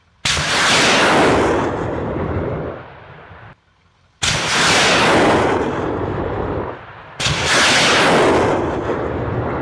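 Three rocket launches from a Cheburashka 217 mm truck-mounted multiple rocket launcher, the second about four seconds after the first and the third three seconds later. Each begins with a sudden blast, followed by a roar that fades away over two to three seconds.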